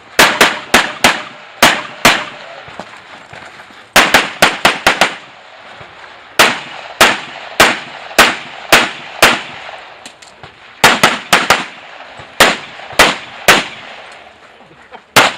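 Pistol shots fired by a practical pistol match competitor: about thirty sharp cracks in quick strings of three to seven, several shots a second, with short pauses between the strings and a last single shot near the end.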